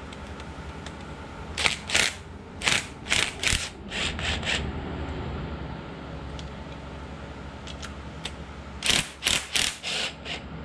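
Ratchet and 10 mm socket clicking in two short runs, one about two seconds in and one near the end, as the glow plugs of a 7.3 Powerstroke diesel are broken loose.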